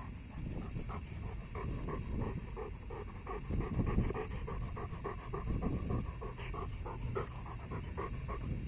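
Bernese mountain dog panting quickly and evenly right at the microphone, about four or five breaths a second, with some low rumbling bumps in the middle.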